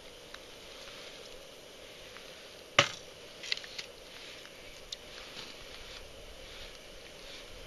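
Ice-fishing gear being handled at the hole: one sharp knock about three seconds in, then a few lighter clicks and soft scrapes as a wooden tip-up and its line are worked by hand.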